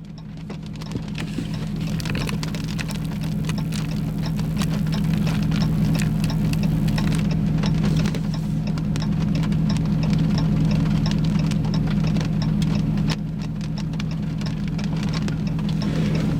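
Rain drumming on a car's roof and windows in irregular sharp taps, over the steady low hum of the vehicle.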